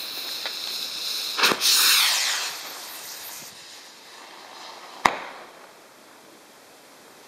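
Nico 'Blast' firework rocket launching about a second and a half in, with a sharp crack and a loud hissing whoosh that falls in pitch and fades as it climbs. A single sharp bang from its burst follows about five seconds in.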